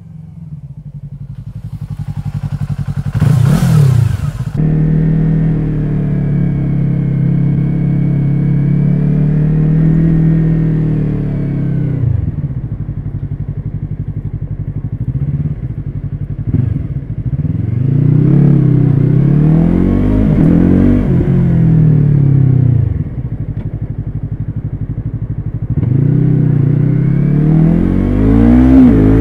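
Yamaha YZF-R3 engine through an Akrapovic carbon slip-on exhaust with no baffle, ridden on the road: the revs climb and drop several times through the gears, with a short loud rush about three seconds in.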